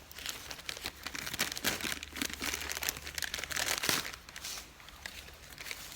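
Packaging being handled and crumpled by hand, a continuous crackly crinkling with quick rustles, loudest between about one and four seconds in.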